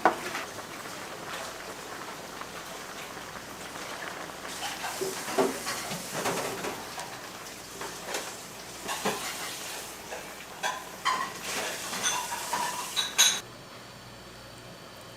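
Kitchen clatter: bowls, pots and utensils knocking and clinking at irregular moments over a steady hiss, the clatter busiest in the second half and stopping abruptly near the end.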